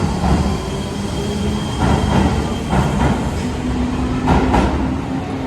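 Electric train moving through the station: a steady rumble with several wheel clacks over rail joints, and a level motor hum that comes in about halfway through.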